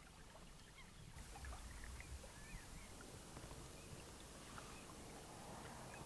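Quiet lakeside ambience: a faint low rumble with a few short, faint bird chirps.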